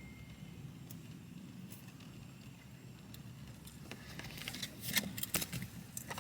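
Quiet background hum, then a run of light clicks and rustles from about two-thirds of the way in, like things being handled close by.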